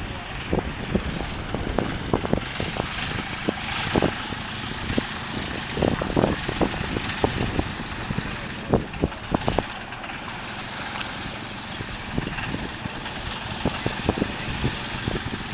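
Ryan ST-A's Menasco inverted four-cylinder inline engine running at low power as the vintage monoplane taxis, a steady propeller drone with a few short, louder thumps in the middle.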